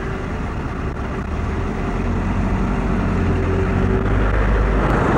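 Steady low engine rumble, growing slightly louder.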